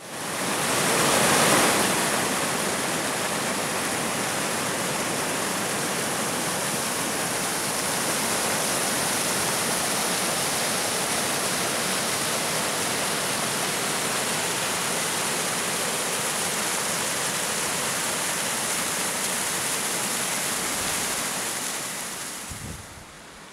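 Mountain stream rushing over rocks in a steady roar of white water, loudest in the first two seconds, then even, and fading near the end.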